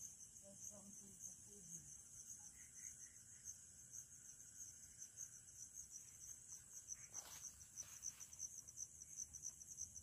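Crickets chirping: a faint, fast, even, high-pitched pulse that goes on without a break.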